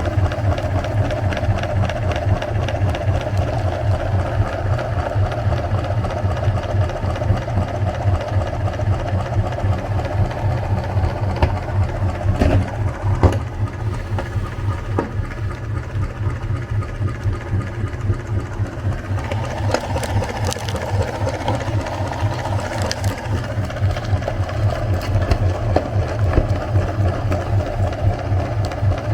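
Electric meat grinder running continuously, its motor giving a steady hum with a fast rattle, and a few sharp clicks about halfway through.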